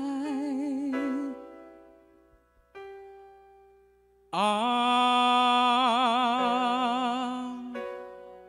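A ballad sung to a soft instrumental backing. A held sung note with vibrato ends about a second in, a quiet sustained chord follows, then a second, long held note with wide vibrato comes in about four seconds in and fades near the end.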